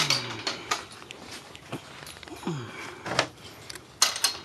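A dog sniffing and moving about on a hard floor, with scattered short clicks and knocks and a couple of brief low falling sounds.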